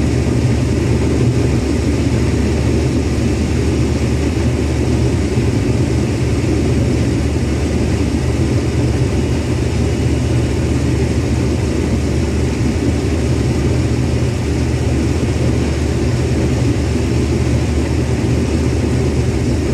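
Large diesel engine of harvest farm machinery running steadily at constant speed, a continuous low drone.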